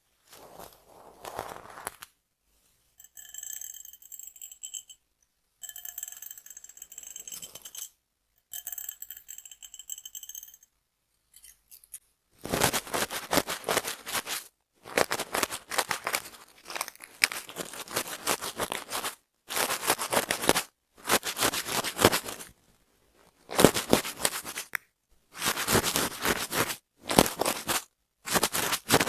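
Close-miked crackly scratching and scraping of hair and scalp in short, cut-together bursts, the sound of dandruff being worked loose from the scalp. Earlier, three short spells of a fainter sound holding a few steady tones.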